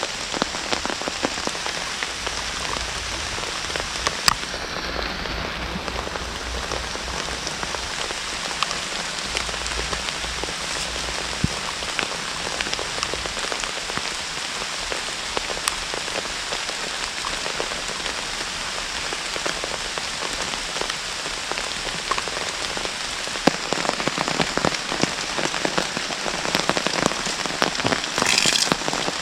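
Steady rain falling in woodland, with many separate drops striking close by. A short brighter hiss comes about a second before the end.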